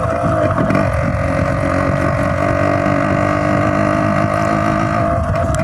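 Yamaha RX135's two-stroke single-cylinder engine running at high revs while the bike is ridden hard, its pitch holding fairly steady.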